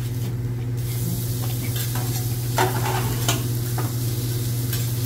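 Food sizzling on a hot teppanyaki flat-top griddle, a steady frying hiss over a constant low hum, with a few sharp metallic clicks in the second half.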